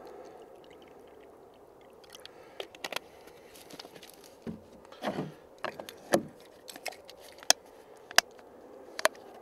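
Water trickling from a plastic bottle into a small plastic tub, faint, then a series of short plastic clicks and knocks as the tub's lid is pressed on and its clip-lock tabs are snapped shut; the sharpest clicks come in the second half.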